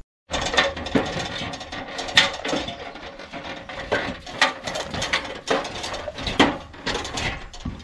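A rickety ladder rattling and clanking irregularly as someone climbs down it off a roof.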